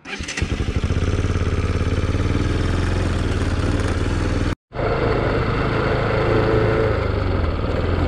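Motorcycle engine running steadily as the bike rides along, coming up quickly in the first half second. It drops out for a split second a little past halfway, then carries on.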